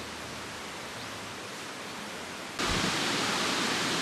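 Steady outdoor hiss with no distinct events, which jumps suddenly louder and brighter about two and a half seconds in and then holds steady.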